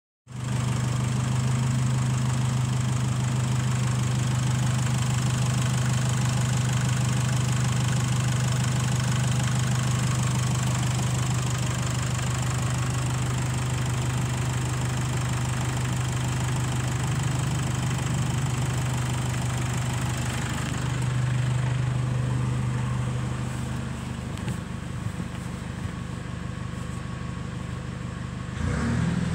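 Nissan D40 Navara's 2.5-litre four-cylinder turbo diesel idling steadily. About two-thirds of the way in it turns duller and quieter, heard from inside the cab, and near the end it starts to rev up.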